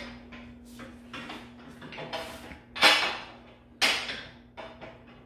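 Metal ATV nerf bar knocking and clanking against the quad's frame and foot peg as it is test-fitted: a few light knocks, then two loud clanks about a second apart in the middle, and a few light taps near the end. A steady low hum runs underneath.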